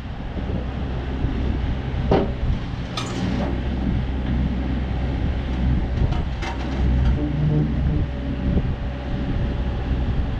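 Volvo ECR50 mini-excavator's diesel engine running steadily as the hydraulics work the boom and bucket, with a few sharp knocks from the arm and a faint steady whine in the second half.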